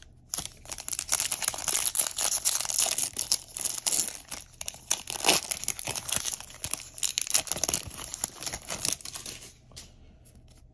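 Foil wrapper of a Bowman baseball card pack being torn open and crinkled in the hands: a dense run of crackling and tearing that stops about a second before the end.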